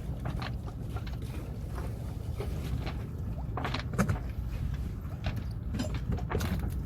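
A steady low rumble with scattered light clicks and knocks; the sharpest knock comes about four seconds in.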